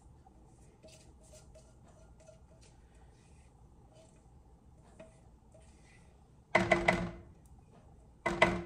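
Faint scraping and light taps of a spatula working cake batter into a baking pan. Near the end come two short, much louder sounds about a second and a half apart.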